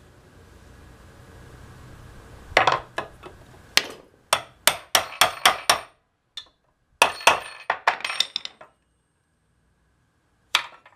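Hammer striking a brass drift to knock the old rear main seal out of a Cummins 6BT's rear seal housing: sharp metallic blows in quick runs of several a second, with a short break before a last strike near the end.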